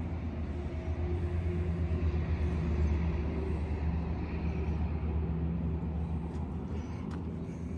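Steady low engine drone with a rumble beneath it, a constant hum that neither rises nor falls.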